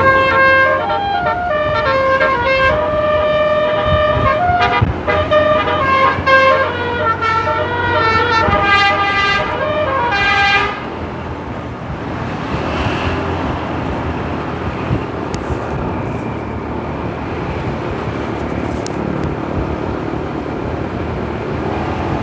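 Bus's 'telolet basuri' musical air horn playing a tune of held notes that step up and down in pitch, stopping abruptly about ten seconds in. After that there is only steady road and engine noise.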